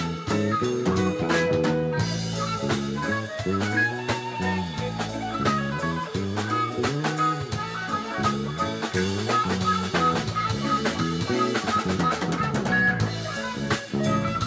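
Live band playing a full-band jam on electric guitars, electric bass and drum kit, with a moving bass line and steady snare and kick beneath the guitar lines.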